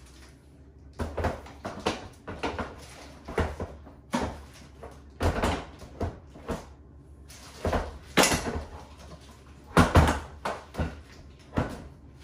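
Hard plastic parts of an infant car seat being handled and fitted together: a run of irregular knocks, clunks and scraping, the loudest about eight and ten seconds in.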